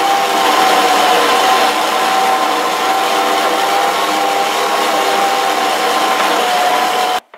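Electric stand mixer running at speed, its wire whisk beating a thick butter, egg and flour cookie dough in a steel bowl. The motor gives a steady whine that stops suddenly near the end.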